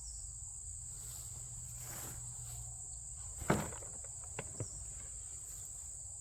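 Steady high-pitched insect chirring, with a soft knock about three and a half seconds in and two small clicks shortly after.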